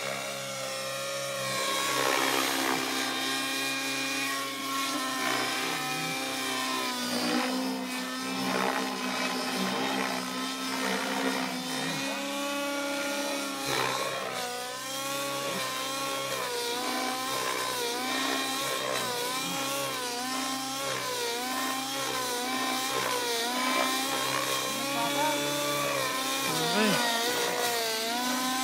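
T-Rex 700 radio-controlled helicopter in flight, its engine and rotor blades running with a pitch that keeps rising and falling as it manoeuvres, wavering up and down repeatedly in the second half.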